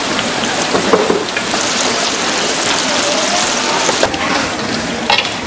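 Battered fritters deep-frying in a large wok of hot oil: a dense, steady sizzle and crackle. Two brief sharp clicks break through, about a second in and again near the end.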